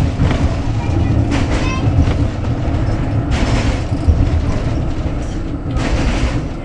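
Tram running along street track, heard from inside the car: a steady low rumble of wheels on rail, with louder rushes of rattling noise about one and a half, three and a half and six seconds in.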